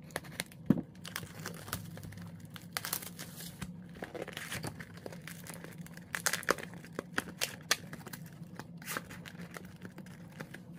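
Plastic shrink-wrap on a trading-card hobby box being slit with a pocketknife and torn off with crinkling and tearing, then the cardboard lid opened and foil card packs handled, giving irregular clicks and rustles.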